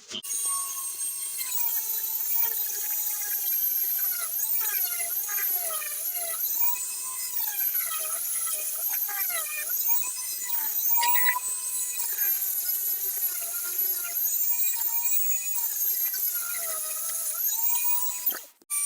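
High-speed rotary tool whining as its bit works the rust off a steel hammer head. The pitch keeps sagging and recovering as the bit is pressed onto the metal and eased off. It cuts out briefly near the end.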